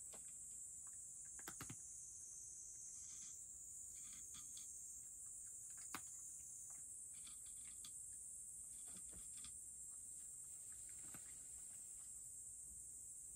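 Faint small crunches and clicks of a cat chewing dry kibble from a bowl, coming in short scattered clusters, over a steady high-pitched background hiss.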